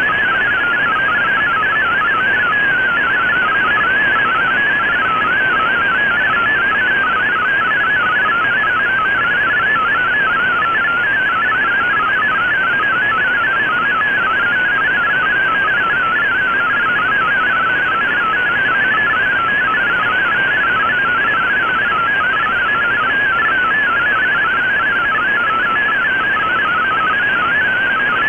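MFSK32 digital text signal received on an Icom IC-R8600 shortwave receiver: a rapid, continuous warble of hopping high tones over a steady band of receiver hiss, with no breaks.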